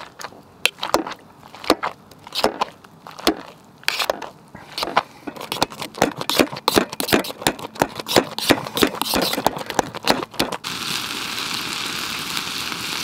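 A metal utensil knocking and scraping against a metal camping pot while mashing boiled potatoes, in irregular strikes that quicken partway through. About ten seconds in, this gives way abruptly to the steady sizzle of sausages frying in a pan over a campfire.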